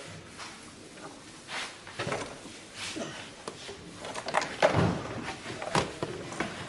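Irregular knocks and clunks of tools and car parts being handled during dismantling, a cluster of sharper knocks about four to six seconds in.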